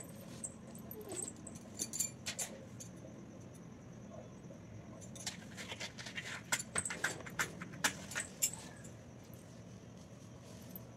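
Scattered light clinks and taps as small puja items are handled, a few at first and then a quick cluster in the middle, over a low steady hum.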